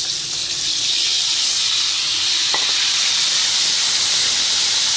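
Stuffed green chillies sizzling steadily and loudly in hot cooking oil in an iron kadhai, the whole batch just tipped in.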